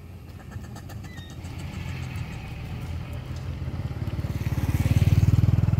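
Motorcycle engine drawing near and passing, a low pulsing engine note that grows louder and peaks near the end.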